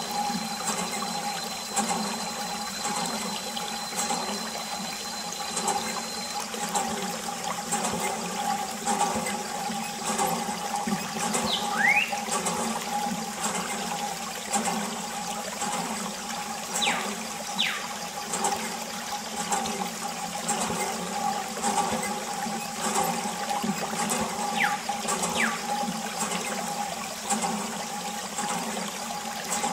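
A steady thin jet of water spraying onto a toy backhoe loader and splashing into wet sand.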